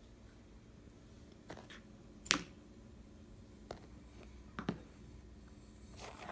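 A few short, sharp clicks and taps, the loudest about two seconds in, as plastic mascara tubes are set down on a hard floor. A soft rustle of handling comes near the end.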